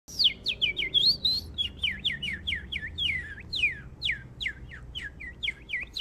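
A man whistling a bird imitation with his lips: a quick run of short chirps, about three or four a second, most sweeping sharply down in pitch, with a couple of rising, held notes about a second in.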